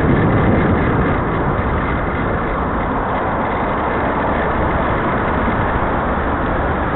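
Steady rush of wind over a bike-mounted camera's microphone while cycling in road traffic, mixed with the running of nearby car engines; it eases slightly in the first couple of seconds as the bike comes up behind the queue.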